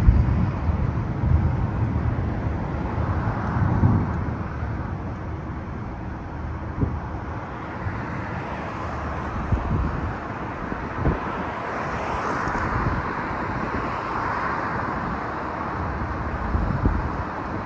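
Steady road-vehicle noise with low rumbling, louder in the first few seconds, and a few short knocks.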